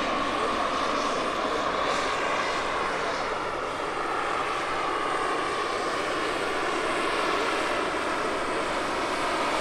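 Large radio-controlled scale helicopters with model gas-turbine engines flying overhead: a steady high turbine whine that drifts slightly in pitch, over a rushing noise of rotor and exhaust.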